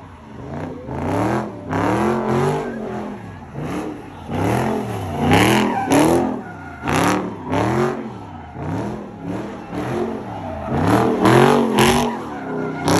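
Car engine revving up and down over and over, about once a second, as the car spins donuts in its own tire smoke, with louder bursts of tire screech now and then.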